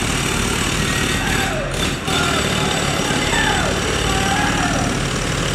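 Roadworks machinery: an engine running steadily under a loud, constant din of construction noise, dipping briefly about two seconds in.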